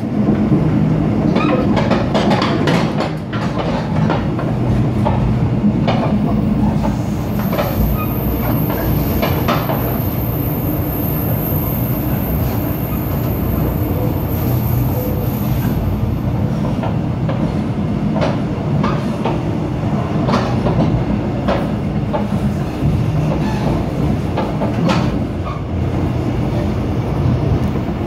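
A train running past at night: a steady rumble of wheels on the rails with irregular clicks as the wheels cross rail joints. A thin, high-pitched squeal rides over it for about ten seconds in the middle.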